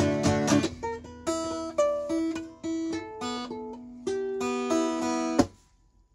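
Steel-string acoustic guitar: a few quick strummed chords, then a slow melody of single notes picked one at a time, stopping abruptly about five and a half seconds in.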